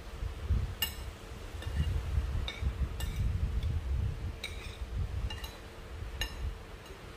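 Cutlery clinking against a plate, about eight light clinks spaced unevenly, over a low rumble and a faint steady hum.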